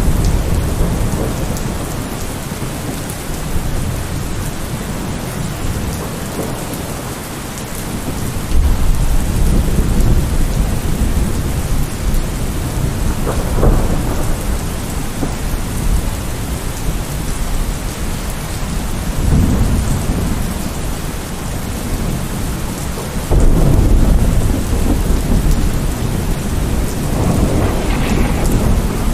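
Steady rain falling outdoors, with low rolling thunder underneath that swells to louder rumbles about a third of the way in and again near the end.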